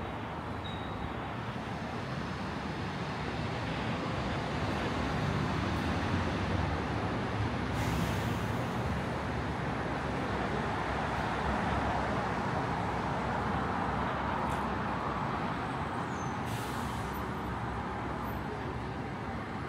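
Motor traffic on a city street: a steady low rumble of engines and tyres that swells a little in the middle, with two short hisses about eight and sixteen seconds in.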